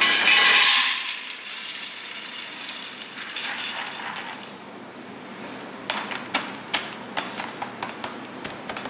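Soaked soybeans poured from a plastic basket into the stainless-steel hopper of a soybean grinder. A loud ringing metallic clatter at the start, then a soft rush of beans sliding in, and a run of sharp clicks and knocks near the end.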